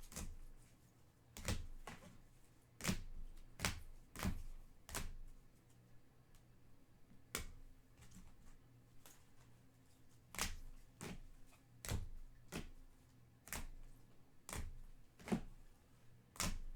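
Sharp, irregular clicks and taps, about one or two a second with a short pause midway, from trading cards being handled and set down on a table.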